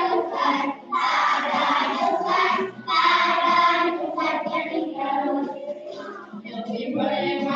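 Group of children singing together in sustained phrases, with notes held for about a second between short breaths.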